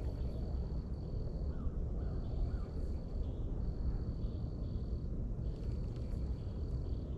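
An insect trilling at one high steady pitch in repeated bouts of about a second and a half with short breaks, over a steady low rumble of wind on the microphone. Two faint short chirps come about one and a half and two and a half seconds in.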